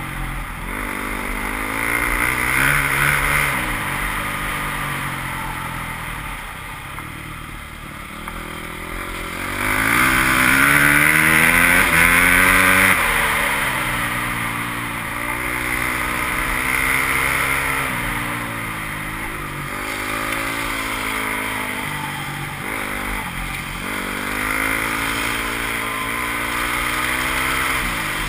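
Enduro dirt bike engine under way on a dirt road, its pitch climbing and dropping again and again as the rider accelerates and shifts through the gears. It is loudest during a hard acceleration about ten seconds in that lasts a few seconds.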